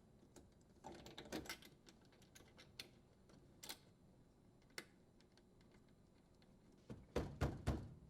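Faint, scattered light clicks and taps of a dishwasher's strain relief nut and wiring being threaded and handled at the terminal box, with a quick run of louder knocks near the end.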